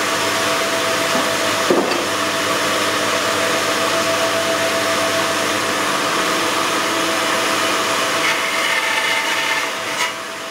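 Band saw running steadily, its blade cutting the outline of a viola plate out of a wooden board.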